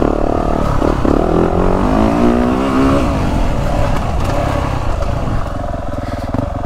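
2023 Yamaha YZ450F's 450 cc single-cylinder four-stroke dirt-bike engine on the trail, running on a retarded-ignition map that slows its rev build. It revs up under throttle from about one to three seconds in, then drops back to lower, varying revs.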